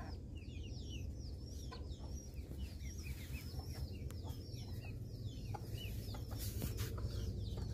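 Ducklings peeping: many short, high, downward-sliding peeps, several a second, over a steady low hum.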